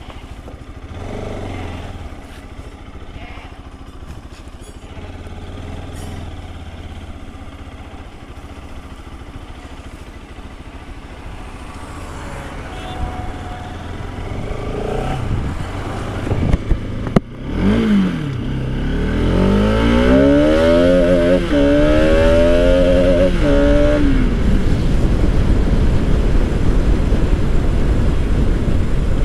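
Bajaj Pulsar RS200's single-cylinder engine pulling away gently at low revs. About two-thirds of the way in it accelerates hard, its pitch climbing, dropping at a gear change, and climbing again. It then runs steadily and loud at road speed.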